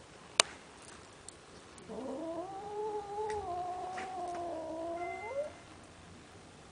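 Young grey-and-white cat giving one long, drawn-out yowl of about three and a half seconds, rising in pitch at the start and again just before it breaks off: a warning call at the beagle facing it. A sharp click sounds shortly before it.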